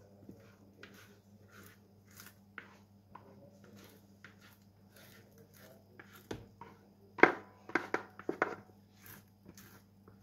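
Thick, seeded bread dough being scraped out of a bowl into a metal loaf tin: soft scattered scrapes and taps, with a quick run of louder knocks near the end.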